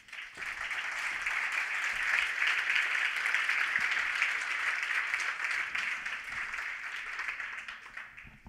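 Conference audience applauding, a dense patter of many hands clapping. It swells within the first second, holds, and tapers off near the end.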